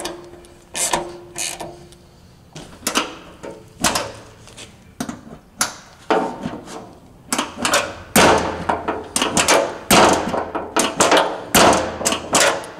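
Hand ratchet and socket clicking on the latch and bracket bolts of a SuperATV UTV door as they are tightened, with a string of metallic clicks, clunks and knocks from the tool and the door hardware. The knocks come thicker and louder in the second half.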